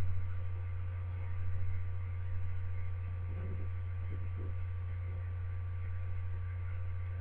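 Steady low electrical hum, like mains hum in the recording, with a few faint, indistinct murmurs a couple of seconds in.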